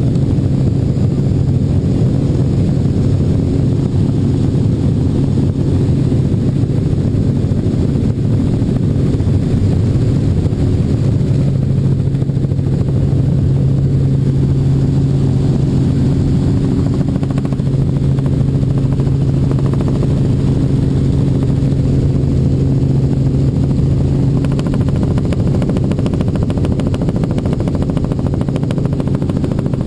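Helicopter engine and rotor noise heard inside the cabin in flight, a loud, steady drone with a constant low hum. A rougher rushing noise joins in about 25 seconds in.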